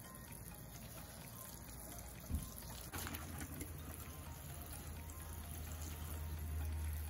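Water from a watering can's rose spout sprinkling onto potted petunias, a faint steady patter. A low hum joins about three seconds in.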